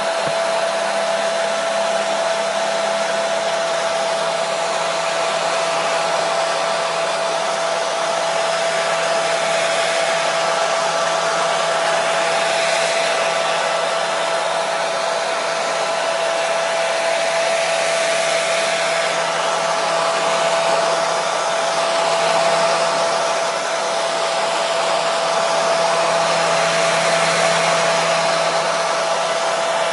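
Hair dryer blowing steadily, with an even rushing noise of air and a constant motor whine, used as white noise.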